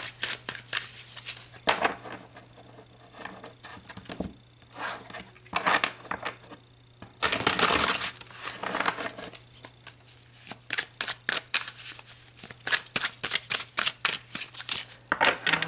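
A tarot deck being shuffled by hand: soft swishing bursts as the cards slide over one another, one longer about halfway through. From about ten seconds in comes a quick run of sharp card slaps and taps.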